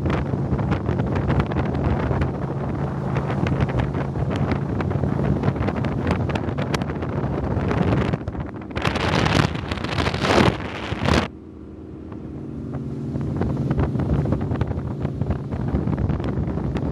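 Fountain Lightning powerboat's engines running at high speed, a steady drone buried under heavy wind rush on the microphone. About nine seconds in, the wind noise swells louder for a couple of seconds, then cuts off suddenly, leaving the engine drone quieter before it builds back up.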